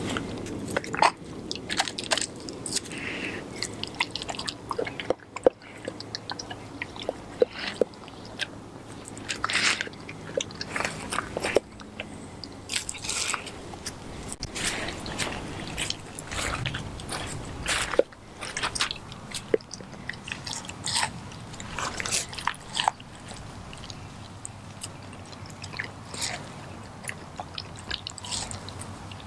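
A German Shepherd–Kelpie cross dog chewing raw turkey, with irregular bites and sharp crunches.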